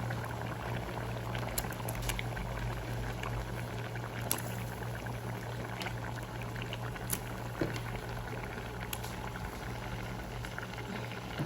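Coconut-ground curry bubbling at a boil in the pot, with scattered small pops and a steady low hum underneath.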